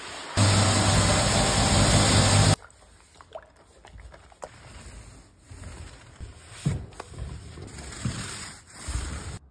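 A loud, steady rushing noise with a low hum that lasts about two seconds and cuts off abruptly. Then quieter wet sounds: a paint roller loaded in a tray of floor coating and rolled across a timber parquet floor, with soft sloshing and scraping.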